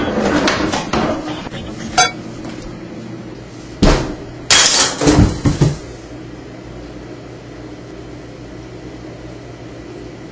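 Kitchen clatter of pots and dishes: a knock about two seconds in, a sharp bang near four seconds, then a quick run of loud clanks and crashes. A steady low hum follows.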